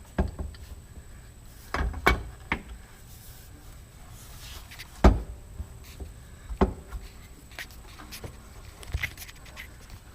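Scattered knocks and clunks of parts and tools being handled while a UTV muffler is fitted, the loudest about five seconds in.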